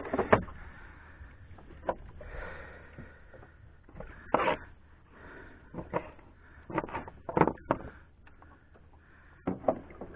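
Irregular knocks and clicks from fishing tackle being handled and bait cut on a bait board on a small boat, over a faint steady low rumble.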